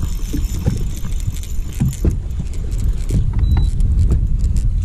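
Wind buffeting the microphone with a heavy low rumble, over irregular light metallic clicking from a Daiwa Revros LT spinning reel as its handle is cranked.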